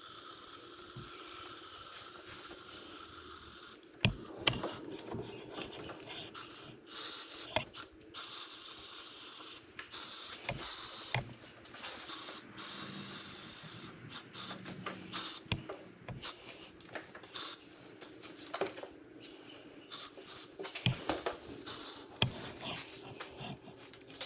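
Air line and powder coating gun being hooked up and handled: a steady hiss for about the first four seconds, then many irregular clicks, knocks and rattles.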